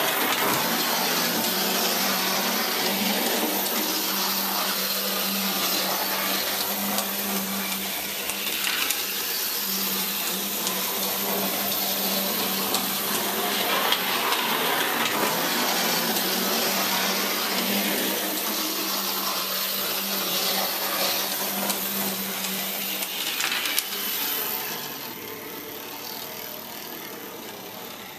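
Scratch-built brass O-scale model power truck running around the track: its small horizontal electric motor whirring with a steady hum and its wheels rolling on the rails, swelling and easing every few seconds, then quieter for the last few seconds.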